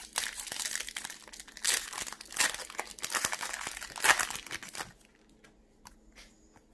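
Foil wrapper of a Pokémon trading card booster pack crinkling and tearing as it is ripped open by hand, with several loud rips over about five seconds. After that the sound drops to a few faint ticks as the cards are pulled out and handled.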